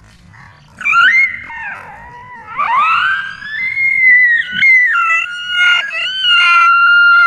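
A dog whining and howling in long, high-pitched cries. After a quiet first second the cries start, one sweeps sharply upward about three seconds in, and they then hold a steady pitch.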